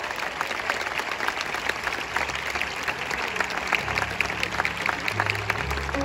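Audience applauding, many hands clapping at once. About halfway through, low sustained bass notes of music come in underneath.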